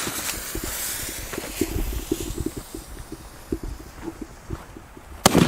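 The lit fuse of a Daredevil firework battery hisses and sprays sparks, fading over the first couple of seconds. Soft irregular thumps and rustling follow. About five seconds in, the battery fires its first shot with a sharp bang, then keeps going with dense crackling.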